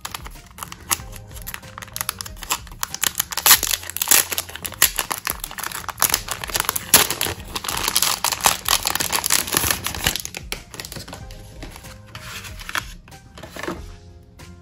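Packaging being handled and opened: dense crinkling and rustling for about ten seconds, thinning out near the end, over soft background music.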